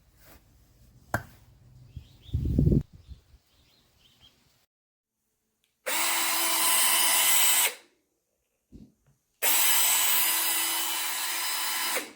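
Peektook 6-inch cordless mini chainsaw's electric motor run twice in short bursts, about two seconds and then nearly three, each a steady whine that starts and stops abruptly. Before the runs come a few handling knocks and a low thump.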